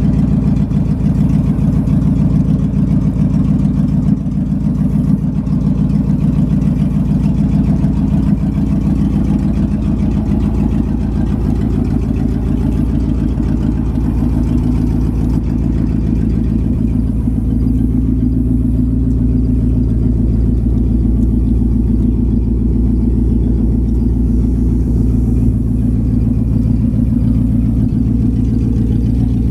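1960 International B170 grain truck's engine idling steadily, with a slight change in its note about halfway through.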